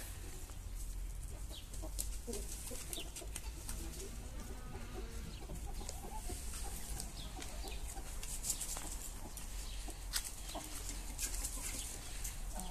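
Aseel chickens clucking with short, low calls, mixed with scattered sharp clicks.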